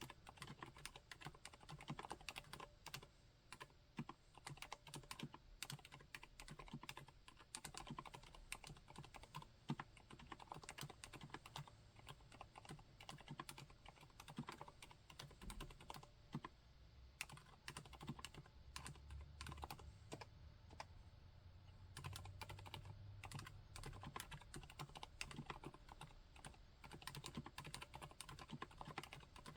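Continuous quiet typing on a Monokei Standard mechanical keyboard with Cherry MX Silent Red switches: rapid, irregular keystrokes, muted by the switches' dampening.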